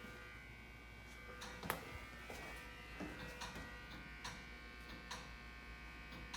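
Otis hydraulic elevator car with a faint steady hum and irregular sharp clicks, one every second or so, the loudest about a second and a half in. The clicking is typical of a relay, which the owner suspects may be behind the car operating panel or on the car top.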